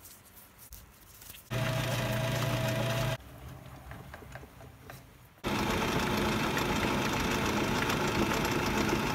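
1947 South Bend 9A lathe running under power: a steady mechanical hum from motor and gearing. It starts and stops abruptly, once from about a second and a half in to about three seconds, and again from about five and a half seconds on. Faint clicks come in the quieter stretches.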